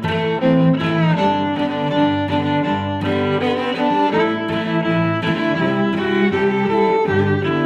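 Background music: a string arrangement with violin and cello.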